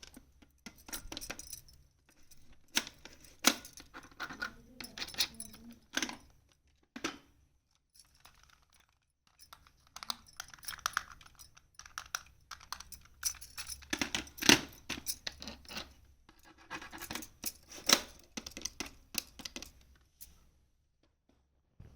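Small plastic toy kitchen pieces clicking and clattering as they are handled and set down, in two busy stretches with a short lull between.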